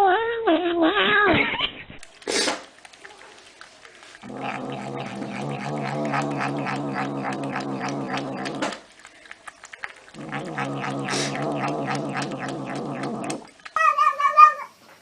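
Cats meowing and yowling. A short bending meow, then two long, low drawn-out yowls of about four and three seconds, and another meow near the end.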